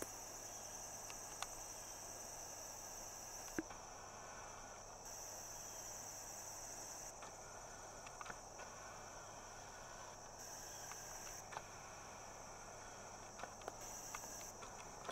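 Insects, crickets or the like, trilling in a steady high-pitched chorus that drops out and comes back a few times, with a few faint clicks and rustles.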